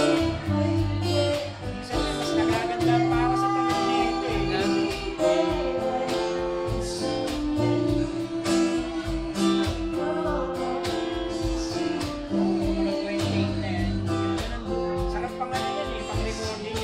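Live acoustic band: a singer over strummed acoustic guitar, with a cajon tapping out the beat.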